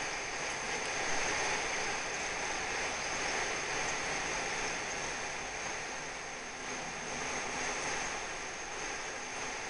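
Steady, even hiss of background noise with a faint, high, steady whine above it.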